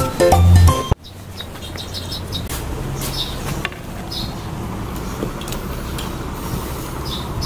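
Music for about the first second, then steady outdoor background noise with a low traffic-like hum and a few short bird chirps.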